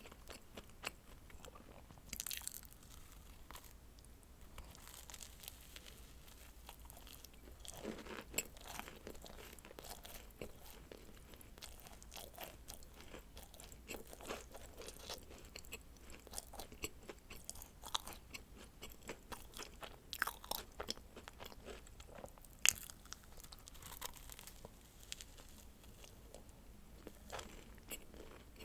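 Close-miked eating of dacquoise: soft chewing with scattered crisp crunches and sharp clicks as the meringue shell is bitten, the sharpest click about 23 seconds in.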